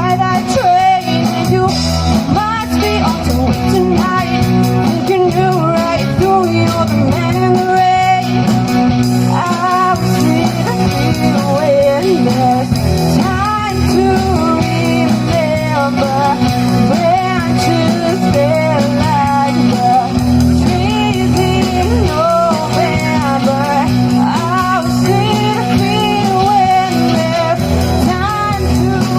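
Pop-rock song playing: a wavering melodic lead line over steady band backing of sustained chords, bass and guitar.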